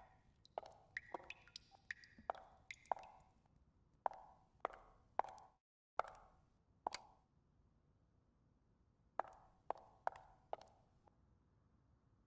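Footsteps of heeled boots on a hard floor: slow, hesitant steps in small groups, each a sharp tap with a short ringing tail. The steps stop about three quarters of the way through.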